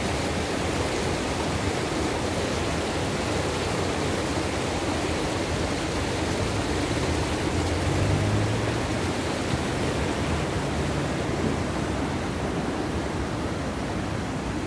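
Muddy creek running high and fast after heavy rain, its floodwater rushing over rocks in a steady wash of noise. A brief low rumble comes about eight seconds in.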